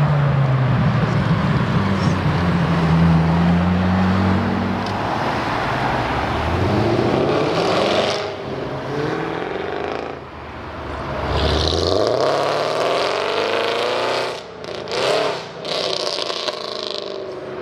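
A McLaren Senna's twin-turbo V8 pulling away, followed by other cars accelerating past one after another. The engine notes rise in pitch as each car speeds up, with brief sharp dips in the sound near the end.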